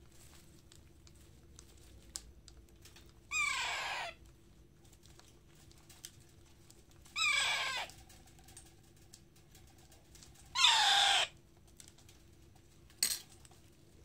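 Baby parrot giving food-begging calls while being spoon-fed dal: three calls of under a second each, about three and a half seconds apart, each falling in pitch, then a short fourth call near the end.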